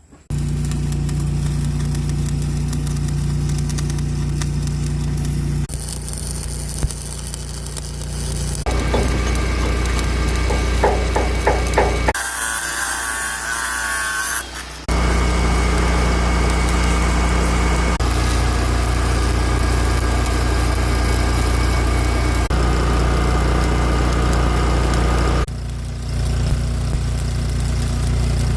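Engine of an engine-driven welding machine running steadily, with crackling and hissing from arc welding over it at times; the sound changes abruptly several times.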